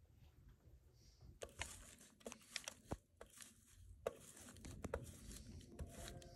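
A yellow block being grated by hand on a metal box grater: a run of irregular rasping strokes with a few sharp clicks, starting about one and a half seconds in.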